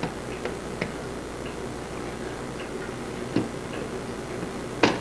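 Light, irregularly spaced metallic clicks and taps from a brass clock movement as its top plate is worked loose from the pillars, with one louder click near the end.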